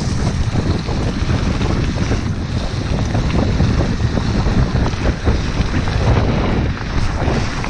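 Wind buffeting a GoPro's microphone as a mountain bike rolls along a dirt track, mixed with the steady rumble and jolting rattle of the tyres and bike over the rough ground.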